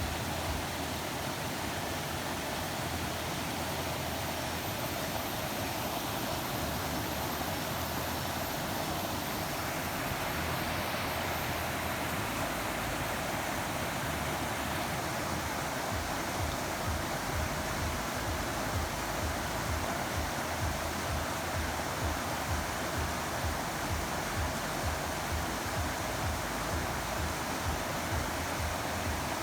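Steady rush of running water, an even hiss that holds without a break.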